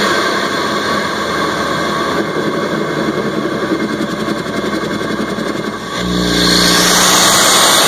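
Mk3 Ford Focus ST's stock turbocharger and engine intake heard from inside the air box: a loud, dense rush of engine and induction noise. About six seconds in the sound changes suddenly to a louder, steadier low engine note with a brighter hiss over it.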